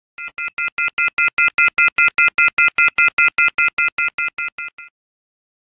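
Rapid train of identical electronic beeps, about five a second, each a steady high chord of tones; it swells up, then fades away and stops about five seconds in.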